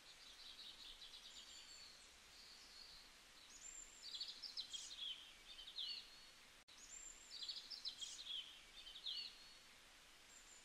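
Faint birdsong over a soft background hiss: a bird sings the same short, rapid trilling phrase twice, a few seconds apart, with softer chirps in between.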